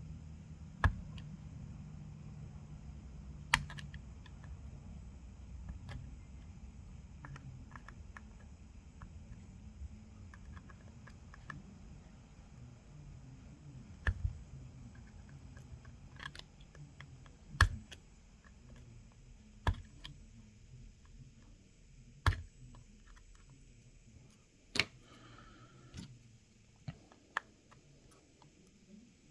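Scattered sharp clicks and taps, about a dozen at irregular intervals, from metal tweezers working against the phone's frame and parts while prying out a glued front-facing camera. A faint low hum sits underneath.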